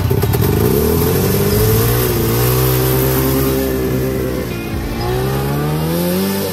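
Twin-cylinder two-stroke snowmobile engine in a homemade racing lawn tractor revving up as the tractor pulls away and holding a high, steady pitch. It eases off briefly about five seconds in, then climbs again as the tractor heads off.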